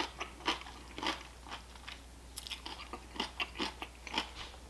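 A person chewing raw cucumber with the mouth close to the microphone: a string of uneven wet crunches, with a short pause near the middle.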